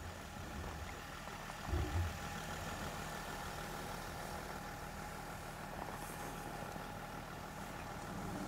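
A vehicle engine idling with a steady hum, with two short low bumps about two seconds in.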